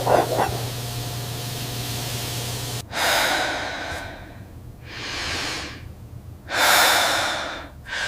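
A steady low hum, then from about three seconds in a person breathing heavily: loud, drawn-out breaths roughly every second and a half.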